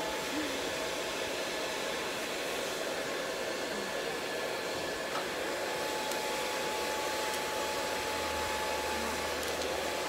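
Handheld hair dryer running steadily: an even rush of blown air with a thin, steady whine.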